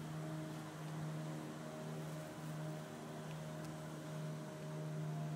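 Bumblebee buzzing: a steady low hum that dips briefly now and then.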